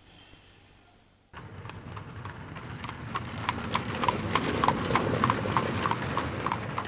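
Horse hooves clip-clopping in a steady rhythm of about three strikes a second. They start suddenly about a second in, then grow louder.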